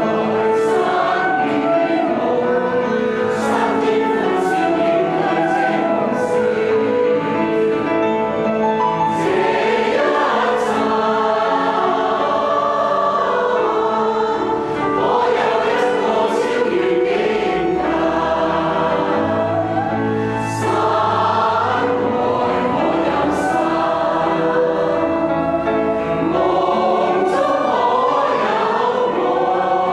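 Mixed choir of men's and women's voices singing a Chinese hymn-like song in parts, with a grand piano accompanying and a few deeper held notes from about halfway through.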